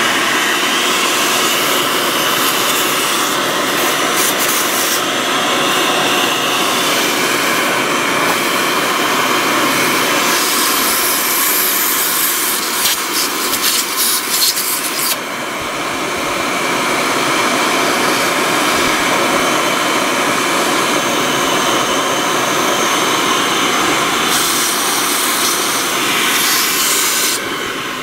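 Vacuum cleaner running steadily, its nozzle sucking caked dust out of the inside of a desktop computer case. A run of quick clicks comes about halfway through.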